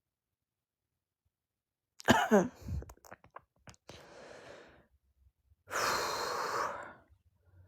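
A woman's voiced sigh that falls in pitch about two seconds in, followed by a soft breath and then a long heavy exhale.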